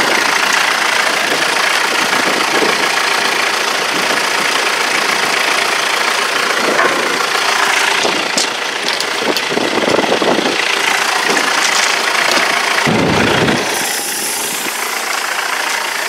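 A motor running steadily, with a couple of louder bumps in the second half.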